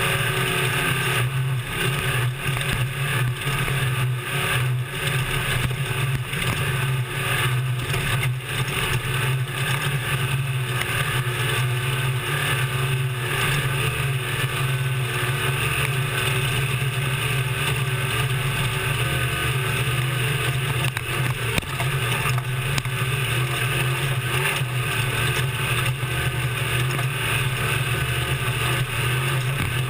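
Class 1450 desert race truck's engine running hard at steady high revs, heard from inside the cab, with frequent knocks and rattles from the truck over rough ground.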